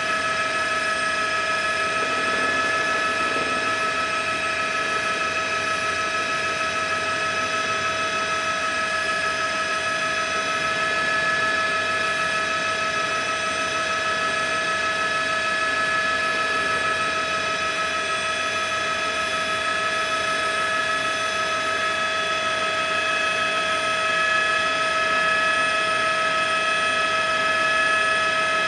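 A news helicopter's turbine and transmission, heard from on board: a steady, unchanging whine made of several high tones over a low rushing noise.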